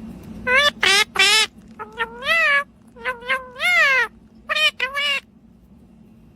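A pet parrot making a run of short meow-like calls, imitating a cat, about ten calls with wavering pitch over some five seconds.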